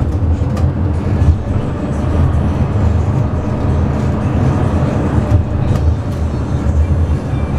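Saint-Étienne T1 tram heard from inside the passenger cabin while running along the street: a steady low rumble of the wheels on the rails and the running gear, with a few faint ticks and rattles.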